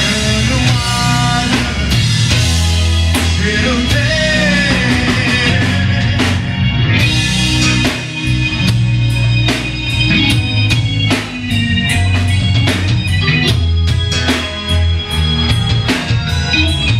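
Live rock band playing: electric guitar, bass and drum kit with keyboard, a steady beat of drum hits throughout. A male singer's vocal line is heard over the band in the first few seconds, and the rest is instrumental.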